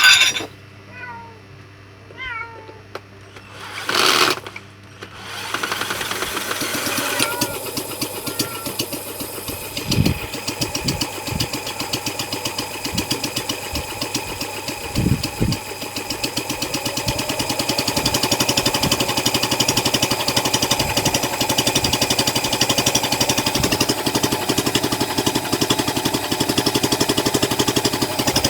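Small homemade four-stroke engine built from a refrigerator compressor and running on gas, starting up about five seconds in after a short hiss, then running with a fast, even firing beat that grows louder and settles into a steady run. A few thumps come through early in the run.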